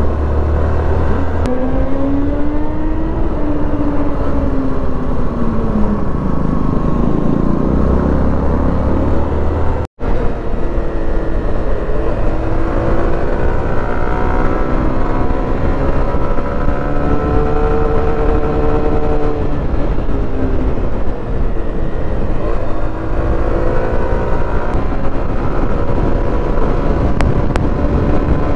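Small commuter motorcycle under way, its engine note rising and falling with the throttle, over heavy wind rumble on the microphone. The sound drops out for an instant about ten seconds in.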